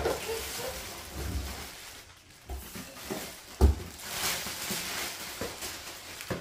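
Plastic packaging bag crinkling and a cardboard box rustling as a plastic-wrapped toy ATV body is pulled out, with scattered knocks and one louder thump about three and a half seconds in.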